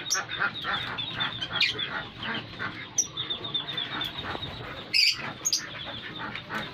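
A colony of lovebirds chattering with dense, rapid chirps and the odd louder shrill squawk, the loudest about five seconds in.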